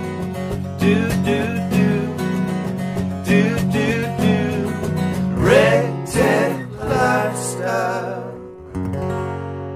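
Country-style intro music led by plucked acoustic guitar at a steady beat, ending on a last chord left to ring out and fade.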